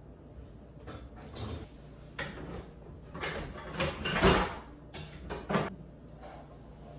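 Dishwasher and kitchen cabinet being handled: a string of sliding rattles, clatters and knocks as the dishwasher rack and door are moved and the cabinet is worked, with the loudest knock a little past the middle.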